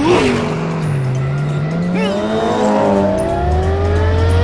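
Cartoon race car engine sound effect: a sudden start, then an engine note that dips and climbs steadily for about three seconds as the car accelerates, with a brief high chirp about two seconds in.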